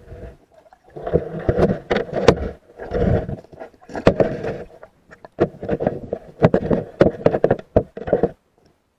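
Muffled underwater knocking and scraping, picked up through a submerged camera's housing, coming in uneven bursts with many sharp clicks.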